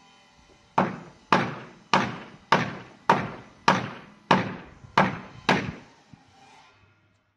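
Nine heavy, evenly spaced blows struck on an old wooden barn door, each followed by a short ring.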